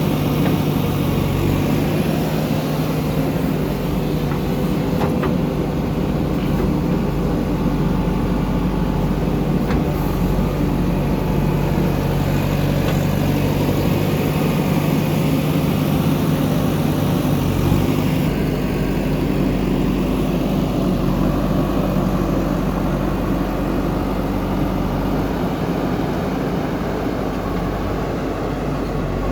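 Heavy diesel engines running steadily under load while a JCB backhoe loader digs and loads mud, with a steady low hum and a few faint knocks.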